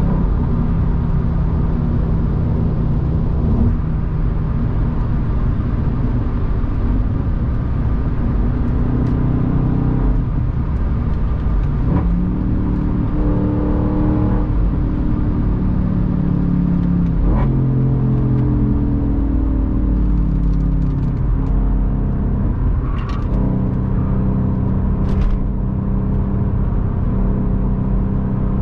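Audi B6 S4's 4.2-litre V8 engine pulling hard from inside the cabin, its note climbing and dropping back several times as the car accelerates along the highway.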